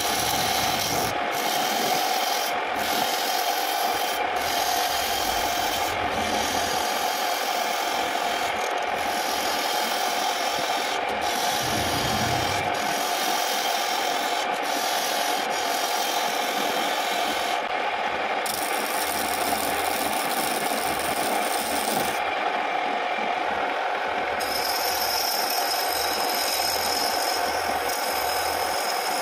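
A homemade wood lathe spins a wooden mug blank while a hand-held turning tool cuts into it. The cutting makes a steady scraping hiss over the lathe's even hum, broken by brief pauses when the tool comes off the wood.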